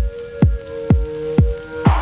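Electronic background music: a steady kick-drum beat, about two a second, under sustained synth notes.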